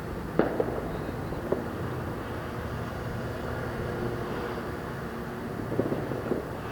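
Distant fireworks: a sharp pop about half a second in, a fainter one a second later, and a quick cluster of pops near the end, over a steady background hum.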